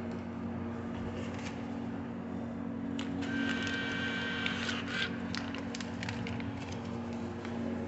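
Steady low electrical hum of a vending machine, with a few sharp clicks a few seconds in and a brief high ringing tone lasting just over a second, typical of coins being handled.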